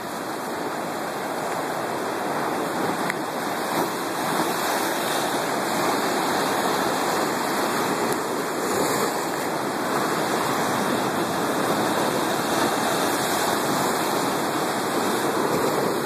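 Sea surf washing and churning over shoreline rocks with the incoming tide: a steady rush of foaming water.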